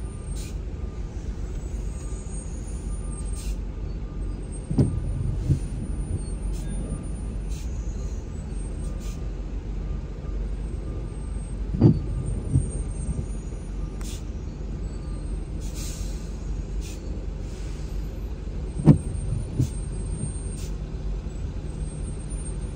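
Steady low rumble of a car and the traffic around it in slow, rain-wet traffic, heard from inside the car. The windshield wipers wipe three times, about seven seconds apart, each sweep giving a pair of short thumps.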